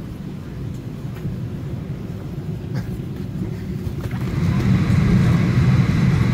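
Steady low hum of a Boeing 737-800 on the ground before departure. About four seconds in it grows louder as a rushing of air joins it.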